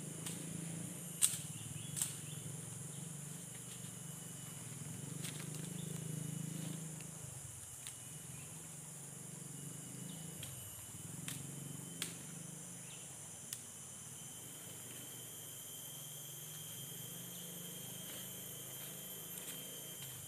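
Tropical forest ambience: a steady high-pitched drone of insects under a low steady rush, with a few sharp clicks or knocks scattered through it.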